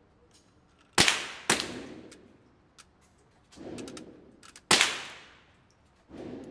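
Three rifle shots in an indoor shooting range, each a sharp crack with a long echoing tail: two half a second apart, then a third about three seconds later. Softer, duller booms swell up between them.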